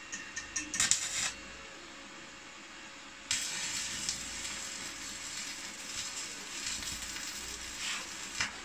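Stick-welding arc from a Mitsushi 400A inverter welder: a few short sputters about a second in, then from about three seconds in a steady crackling hiss as the electrode burns, lasting until just before the end.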